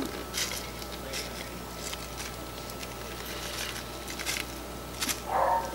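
Faint rustling and light pattering as a corned beef seasoning packet is shaken and its spice seeds sprinkle onto the raw brisket. A short louder whine near the end.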